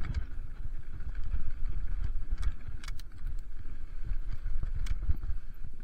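Mountain bike running fast down a rocky dirt trail: a steady rumble of tyres on dirt and wind on the microphone, with sharp clicks and rattles as the bike hits stones.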